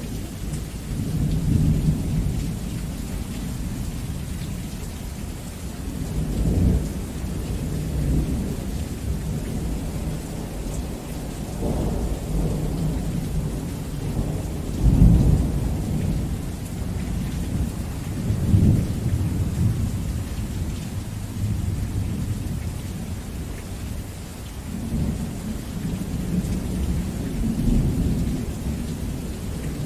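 Heavy rain falling steadily through a thunderstorm, with repeated low rolls of thunder rumbling in and fading every few seconds. The loudest peal comes about halfway through.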